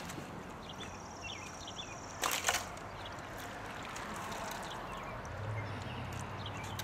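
A short, sudden splash of water about two seconds in as a hooked carp is brought to the landing net at the bank's edge. Faint chirps and a low steady hum sit underneath, the hum starting near the end.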